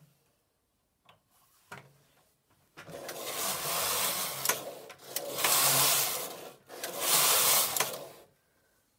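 Silver Reed punchcard knitting machine's main carriage pushed across the needle bed, knitting a row of plain stockinette. A rasping mechanical run of about five seconds, starting about three seconds in and surging louder twice.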